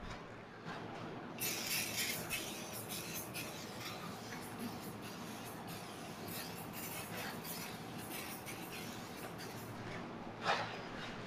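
Spray bottle sprayed in short bursts onto a car wheel and tyre, with handling and wiping sounds. The loudest burst comes near the end. Soft background music with a steady low line runs throughout.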